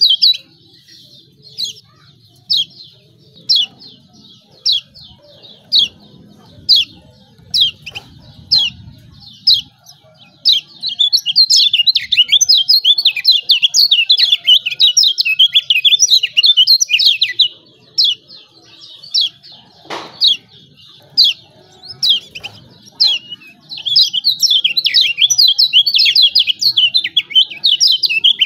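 Kecial kuning (Lombok yellow white-eye) giving sharp, high 'ciak' chirps about once a second. About ten seconds in it breaks into fast, continuous twittering that runs for several seconds, drops back to single chirps, and near the end twitters rapidly again. There is a single click about twenty seconds in.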